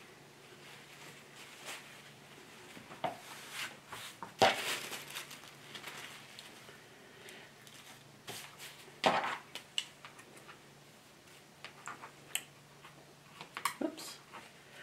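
Cotton fabric and a paper pattern piece being handled on a cutting mat: scattered rustles and a few sharper noisy bursts, then a run of scissor snips near the end from scissors that are getting dull.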